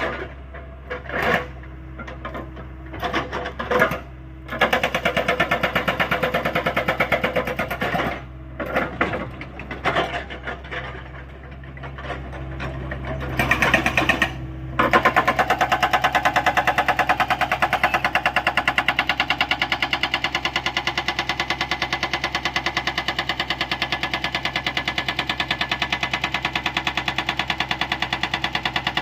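Hydraulic rock breaker on a Hyundai 85A excavator hammering with fast, rapid-fire blows, first in short bursts with pauses, then continuously from about halfway on, over the excavator's engine running steadily.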